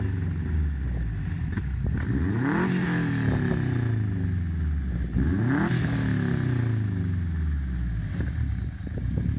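Subaru Impreza WRX's turbocharged 2.5-litre engine (about 300 hp) being free-revved at a standstill, heard through its exhaust. The exhaust note climbs quickly about two seconds in and again about five seconds in, each time sinking slowly back toward idle.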